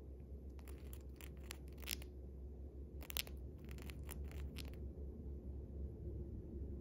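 Cockatiel grinding its beak: two bouts of rapid crunching clicks, each about a second and a half long. Beak grinding like this is the sign of a content, drowsy bird settling toward sleep.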